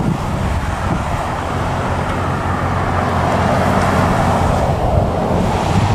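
2002 Chevrolet 1500 pickup's engine idling steadily, with wind buffeting the microphone.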